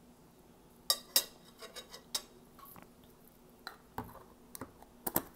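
Metal spoon clinking and scraping against a jar and a plate as chili paste is scooped out, followed by the clicks of the plastic lid being put back on the jar near the end. The clicks are sharp and scattered, with quiet gaps between them.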